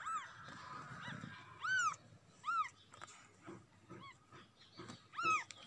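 A very young kitten mewing: a string of about six short, high cries, each rising and falling in pitch, roughly one a second.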